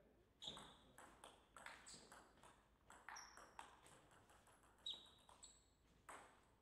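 A table tennis rally: the plastic ball clicks sharply off the rackets and the table, about fifteen hits in quick succession, and the rally ends just before the end.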